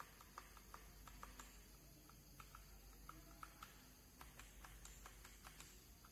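Faint typing on a K1 mechanical gaming keyboard with Red switches: irregular key clicks, a few a second.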